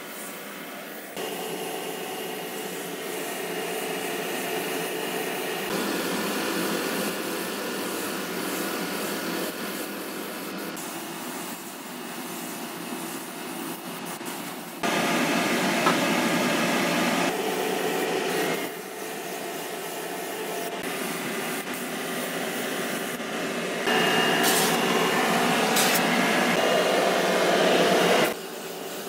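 Gravity-feed paint spray gun running on compressed air, a steady hiss of air and atomised paint, jumping abruptly louder or quieter several times.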